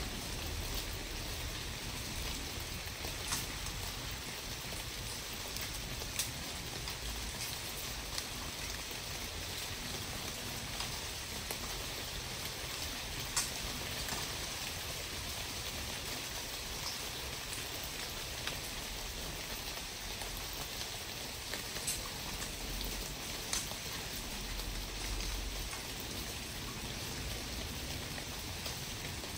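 Steady outdoor hiss with scattered light ticks every few seconds, like rain.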